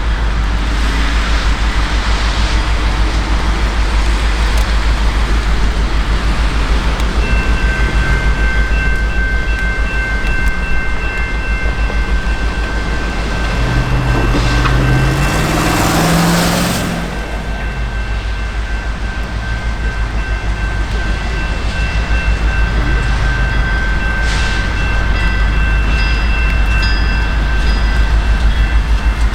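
A train moving past, with a steady deep rumble throughout. From about seven seconds in, steel wheels give a steady high-pitched squeal made of several held tones, and the engine sound rises and falls around the middle.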